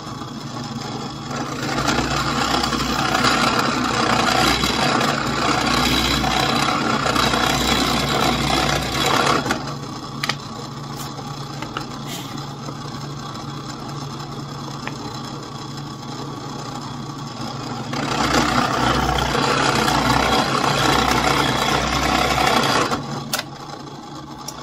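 Drill press motor running with a steady hum, louder and rougher twice as the bit bores 17/64-inch axle holes through a pine block for a toy truck: once for about eight seconds early on, and again for about five seconds later. The cutting noise drops away near the end.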